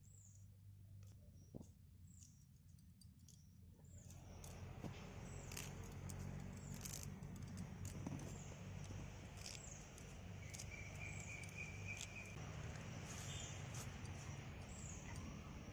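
Birds chirping in the background, short falling chirps every second or two, with a brief trill near the middle, over a low steady hum and a faint hiss that comes up about four seconds in.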